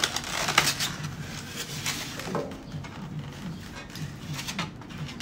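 Light plastic clicks and taps as a plastic egg carton is opened and handled beside a clear plastic egg organizer tray, a few sharper knocks scattered through.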